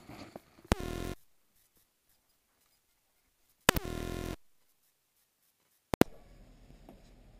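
Electrical buzz from the external microphone's connection to the GoPro while the mic is handled. A click and a short buzz, falling in pitch at its start, come about a second in. Then the sound drops to dead silence, and a second click and longer buzz follow a few seconds later. Near the end there is another click, after which faint outdoor background noise comes in.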